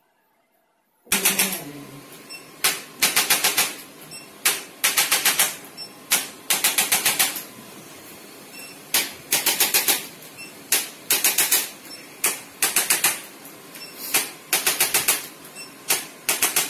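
Rapid bursts of sharp taps or clicks, several strokes at about eight a second in each burst, with short pauses between bursts, starting about a second in.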